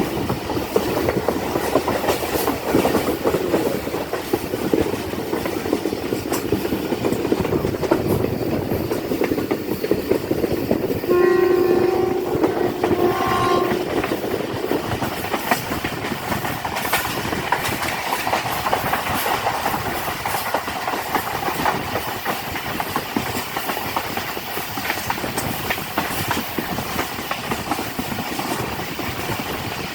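Passenger train running along the track, a steady rumble with clattering wheels over rail joints. About eleven seconds in, the locomotive's horn sounds for about three seconds.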